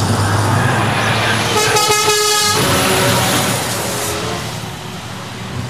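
Truck engine running steadily, with a truck horn sounding once for about a second, some two seconds in.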